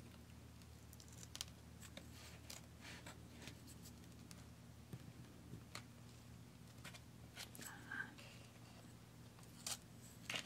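Faint, irregular scratching and clicking of a pointed wooden stick working the paper backing on a sand art board, with a few louder scratches near the end.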